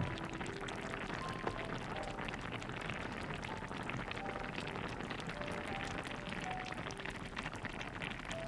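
Spicy kimchi-and-pork broth boiling in an earthenware pot: a steady, dense crackle of small bubbles bursting at the surface. Scattered notes of background music sound over it.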